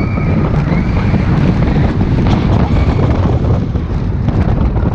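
Steady, loud wind rushing over the phone's microphone, mixed with the rumble of a steel roller coaster train running along its track, heard from a seat on the moving train.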